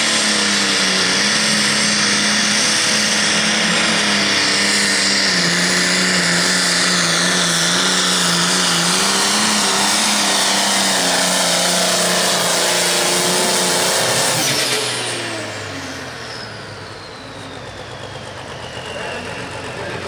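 Turbocharged International pulling tractor's diesel engine at full throttle dragging a weight-transfer sled, its pitch sagging slightly under the load. About fourteen seconds in, the throttle comes off and the engine drops away, while a high turbo whine glides down as it spools down.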